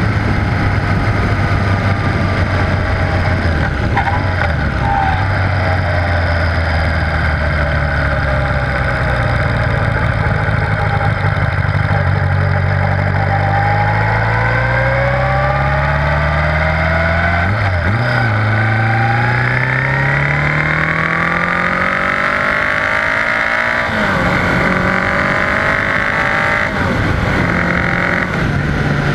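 1978 Honda GoldWing GL1000's flat-four engine pulling the bike along the road under wind and road rush. The engine pitch climbs steadily and drops twice at upshifts in the second half.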